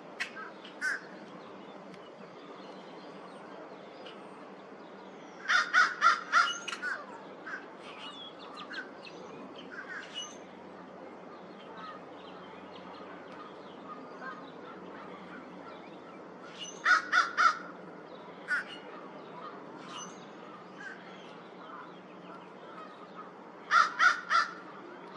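Crow cawing in three quick bursts of short caws, five, then four, then three, several seconds apart. Faint small-bird chirps sound in the background.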